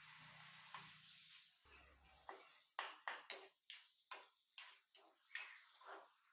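A steel spoon stirring onions, tomatoes and green chillies frying in a non-stick pan. A faint sizzle at first, then from about two and a half seconds in, repeated quick scrapes of the spoon against the pan, about three a second.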